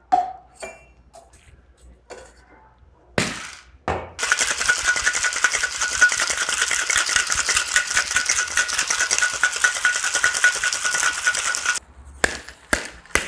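Ice rattling hard inside a stainless steel cocktail shaker, shaken fast for about eight seconds to crack the ice, with the metal tin ringing throughout. Before the shaking come a few clinks and two sharp knocks as the shaker is closed, and a few more knocks follow right after it stops.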